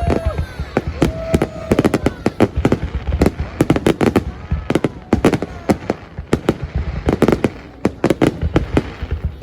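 Aerial fireworks bursting in rapid, irregular succession: many sharp bangs a second, some overlapping, with no break.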